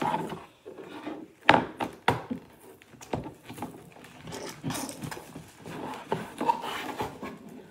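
Cardboard toy box being opened and handled: irregular rustling and scraping of cardboard and paper, with a few sharp snaps, the loudest about one and a half seconds in.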